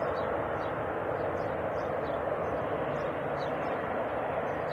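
Jet airliner on landing approach: its engines give a steady rushing roar.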